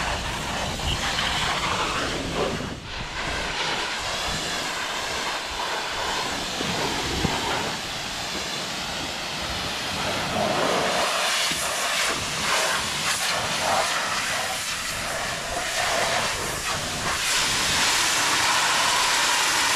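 High-pressure washer jet spraying water onto farm machinery, a steady loud hiss.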